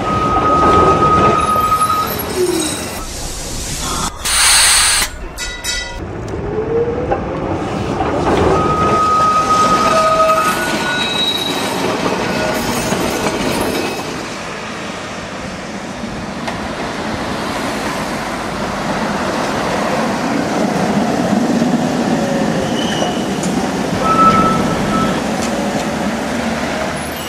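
Tram running along its rails, with steel wheels squealing several times, as on curves, and a short loud hiss about four and a half seconds in.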